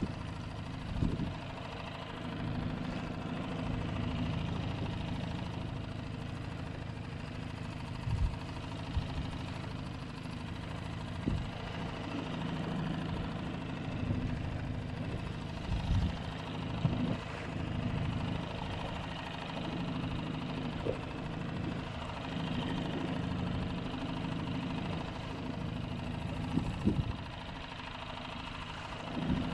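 Small Honda four-stroke outboard motor running steadily at slow trolling speed, with a few short low thumps over the hum.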